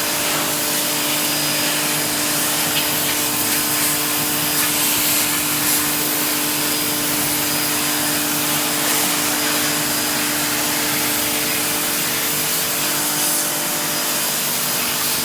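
Pressure washer running steadily: a constant motor-and-pump drone under the loud hiss of the water jet washing mud and silt off wooden wall studs and base plates.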